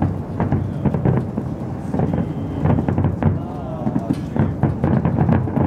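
Fireworks display heard from afar: many bangs in quick succession over a continuous low rumble, with crackling.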